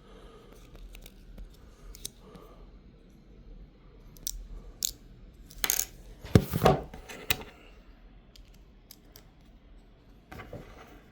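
Small hard plastic and metal parts clicking and clattering as a USB wireless receiver dongle is handled and plugged in. Scattered clicks give way to a short run of clinks and knocks about six seconds in, which is the loudest part.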